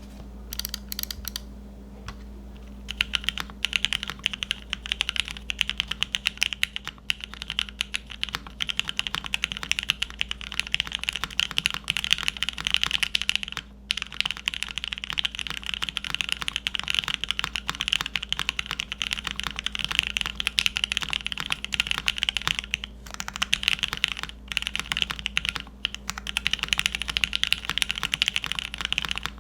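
Fast continuous typing on a Cannon Keys Brutal60 WKL mechanical keyboard with Mauve linear switches in Gateron Milky top housings, an FR4 plate and GMK keycaps. A few scattered key presses come first, then a dense run of keystrokes with brief pauses about halfway through and a couple of times near the end.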